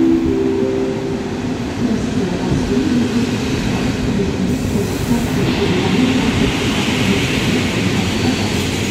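PKP Intercity passenger carriages rolling slowly past as the train pulls into the station, steel wheels running on the rails. A hiss joins in about halfway through.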